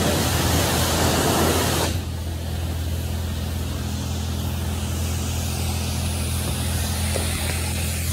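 High-pressure car wash wand spraying water with a loud hiss that drops sharply about two seconds in, then carries on more softly, over a steady low machine hum.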